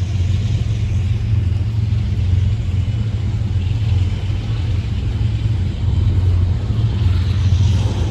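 Diesel locomotive's engine rumbling steadily as a freight train moves through the crossing.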